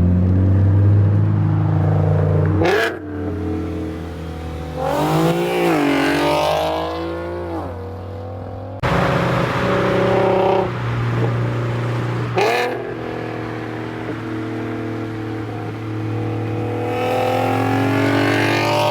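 Infiniti Q50's VQ V6 running through a muffler-delete exhaust with test pipes while driving. It drones steadily, with several rises and falls in revs, the longest about five to seven seconds in, and revs climbing again near the end.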